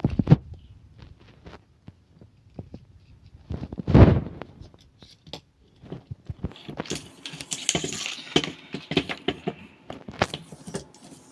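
Handling of a Master Lock cable lockout and breaker lockout parts: scattered plastic and metal clicks, a heavier knock about four seconds in, then several seconds of rattling and scraping as the cable is worked through the lockout.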